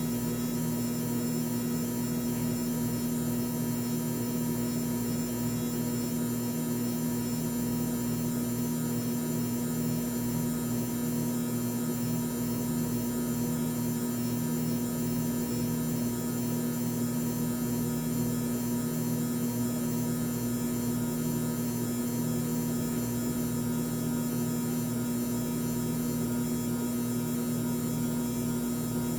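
Electric motor of a mini washing machine running with a steady hum.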